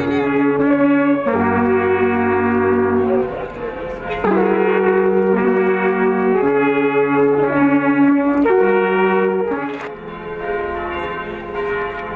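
An alphorn ensemble playing slow, sustained chords, several long wooden horns sounding together, with the notes changing every second or two. Near the end the horns fade and church bells ring.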